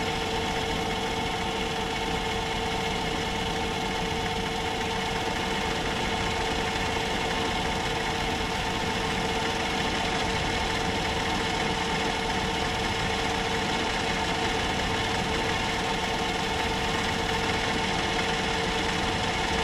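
Myford metal lathe running steadily while taking a light spring cut to clean up the face of a pulley. It makes an even machine hum with several steady tones.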